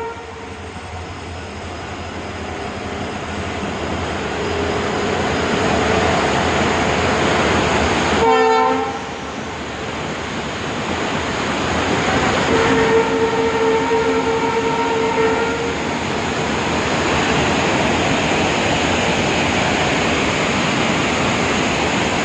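Steady rushing roar of a large waterfall, with a rail track-maintenance vehicle's horn sounding for about three seconds around the middle. A shorter horn note comes about eight seconds in and is cut off abruptly.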